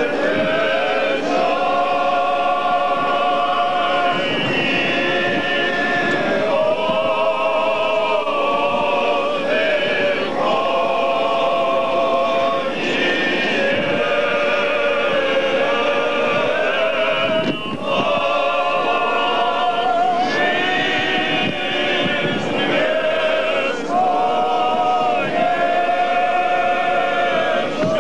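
Choir singing Russian Orthodox chant for a memorial service for the dead, in slow phrases of long held notes with a wavering vibrato.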